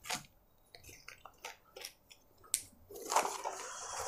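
Ink bottles and cardboard packaging handled on a table: a few light clicks and taps, then rustling from about three seconds in.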